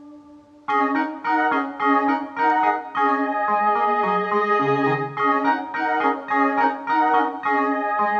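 Synclavier II digital synthesizer playing a keyboard passage in an organ-like voice. A held note fades out, then under a second in a run of repeated chords begins, about two a second, over a bass line that steps down and back up.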